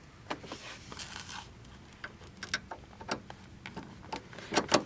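Irregular clicks and short scrapes of a bolt being fitted and turned into the massage chair's side-panel frame, with a louder cluster of clicks near the end. The bolt is being tightened only halfway.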